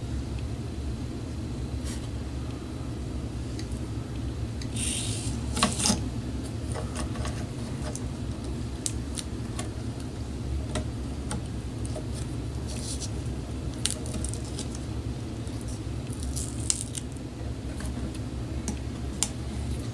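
Tools and small parts being handled during hands-on work: scattered light clicks, with brief scraping rattles about five seconds in and again about sixteen seconds in, over a steady low hum.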